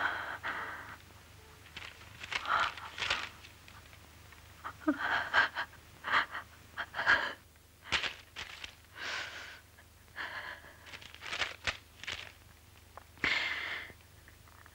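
A woman sobbing, with gasping, breathy intakes and outbursts coming in uneven bursts separated by short pauses.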